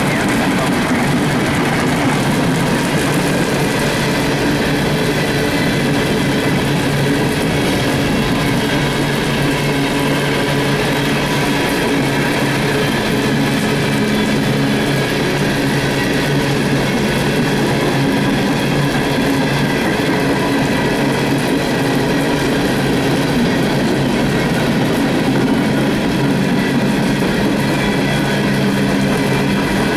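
A long string of empty CSX coal cars rolling steadily past, a continuous rumble of steel wheels on rail with no letting up, mixed with heavy rain falling.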